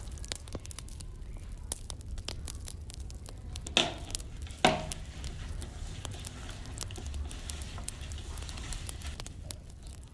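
Fingers scraping and rubbing spice powder and oil together against a stainless steel bowl, a continuous gritty rustle of small clicks. Two sharp knocks on the bowl come about four seconds in, the second ringing briefly.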